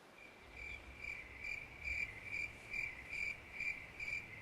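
Cricket chirping at an even rhythm of about two to three chirps a second, faint and fading in at first.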